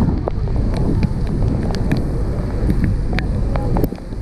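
Strong wind buffeting the microphone over a low, steady roar of churning water below the falls, with scattered sharp crackles throughout.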